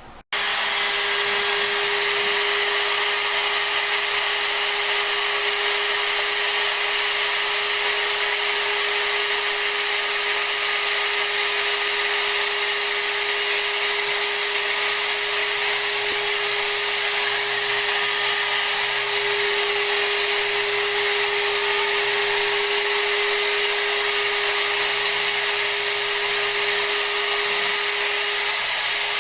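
Spindle of a Mostly Printed CNC milling acrylic, running steadily with a constant high whine over a steady rushing noise; it starts suddenly just after the beginning.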